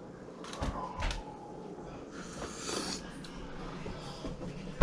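Aluminium foil crinkling as a foil packet is pulled open, for most of a second near the middle, after a couple of light knocks on a wooden cutting board about half a second and a second in.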